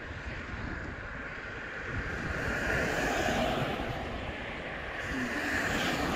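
Traffic passing on a busy main road: the tyre and engine noise of passing cars swells twice, the second time as a car goes by near the end, with wind buffeting the microphone throughout.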